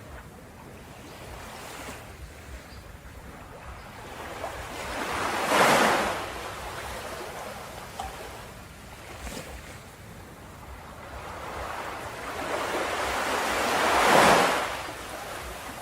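Ocean waves breaking on a beach: two waves build up and crash, one about six seconds in and one near the end, with the sea washing quietly in between.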